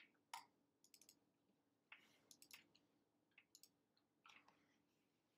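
Near silence with a few faint, irregular clicks from a computer mouse and keyboard over a faint steady low hum.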